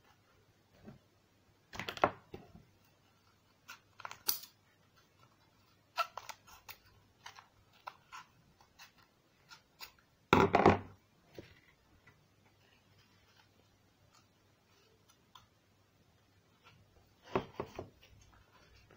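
Handling noise of a purple glitter paper sheet being wrapped around a cardboard tube on a wooden table: scattered rustles and taps, with a few louder crinkling bursts, the loudest about halfway through.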